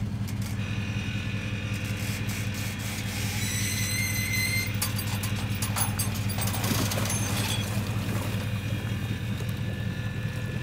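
A vehicle engine idling with a steady low hum while an aluminium jon boat slides off its trailer into the water. A brief high squeal comes about three and a half seconds in, with knocks and scraping a little after, from the hull rubbing over the trailer.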